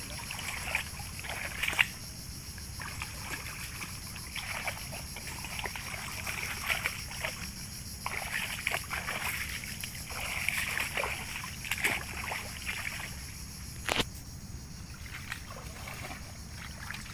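Shallow muddy water sloshing and splashing in irregular bursts as people wade in rubber boots and pull a fishing line through it, with a sharp click about fourteen seconds in.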